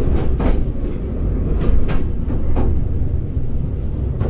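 Train running on rails: a steady low rumble with several sharp, irregular clacks of the wheels on the track.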